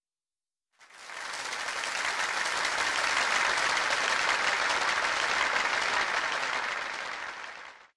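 A crowd applauding, fading in about a second in, holding steady, and fading out near the end.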